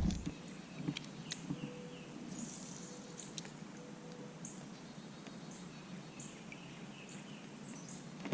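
A bird repeating short, high-pitched chirps about once a second over faint outdoor background noise, with a few light clicks in the first second or so.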